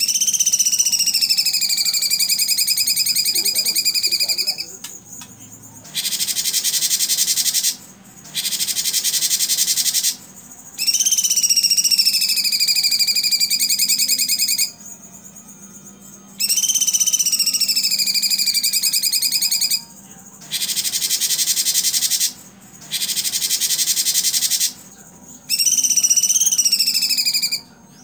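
Cucak cungkok singing in alternating phrases: long, clear whistled notes that dip and level off, broken up by harsh, rapid-fire rattling bursts (its prized 'tembakan'), with short pauses between phrases.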